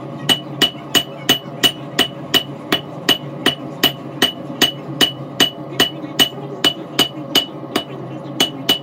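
Hand hammer striking red-hot Damascus steel on an anvil at a steady pace of about three blows a second, each blow with a short metallic ring. The blows draw out the shape of a paring knife blade from the billet.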